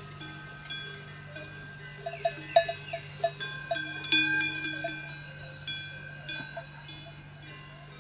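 Bells clinking and ringing irregularly, with a quicker run of strikes between about two and four seconds in, over a steady low hum.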